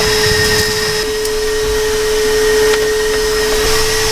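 Vacuum running steadily: a constant whine over the rush of air drawn through its corrugated hose.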